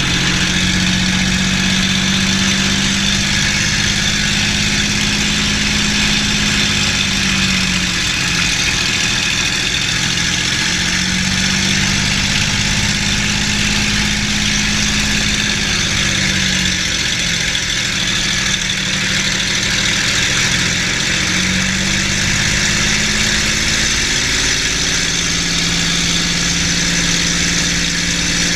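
P-51D Mustang's Packard Merlin V-12 engine running at low power while taxiing, heard from the open cockpit. The engine note sags briefly and picks back up a few times.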